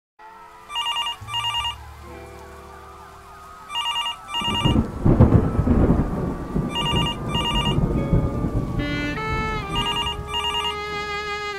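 A telephone ringing with the British double ring, two short rings about every three seconds. From about four and a half seconds in, a thunderclap and rumble breaks in with a rain-like hiss, over a dark sustained music bed that ends in a rising synth run.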